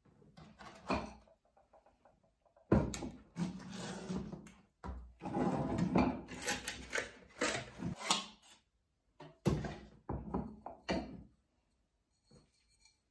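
Cardboard packaging rustling and scraping as nested terracotta flower pots are worked out of their box, with a few sharp knocks of the pots and box on the counter.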